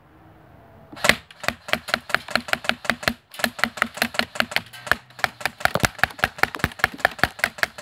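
Airsoft Honey Badger rifle fired on full auto into an old laptop: a rapid string of sharp cracks as BBs strike the plastic screen and keyboard, with a brief pause about three seconds in before the firing resumes.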